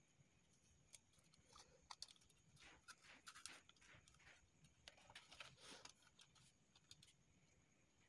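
Faint handling sounds of a disassembled remote control: thin wires rustling and scraping against the plastic casing, with a few small clicks.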